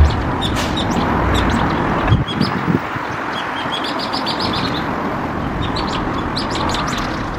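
Small birds chirping: many short, high chirps in quick clusters over a steady background rush, with a few low knocks about two to three seconds in.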